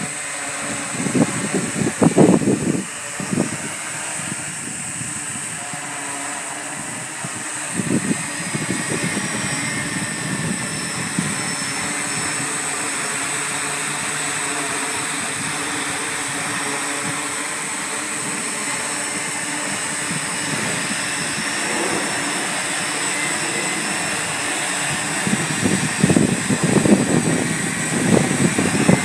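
Large multirotor drone hovering and flying close by: a steady hum from its propellers and electric motors, with several steady tones running through it. Louder rough buffeting comes in about two seconds in and again near the end.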